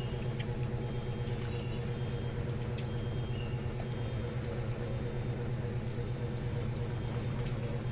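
A steady low engine hum with a fast flutter. Faint clinks and trickles come from a ladle being lifted and poured back into a large aluminium stew pot.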